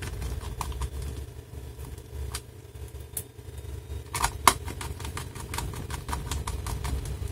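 Small screws being driven back into a laptop's plastic underside with a screwdriver: scattered light clicks and ticks, with a cluster of louder clicks about four seconds in, over a steady low hum.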